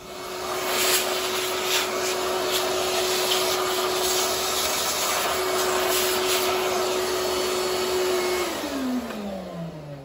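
Vacuum cleaner switching on and running steadily with a loud hiss and hum while its hose sucks dirt out of a Roomba robot vacuum. It is switched off about eight and a half seconds in, and the motor's pitch falls as it winds down.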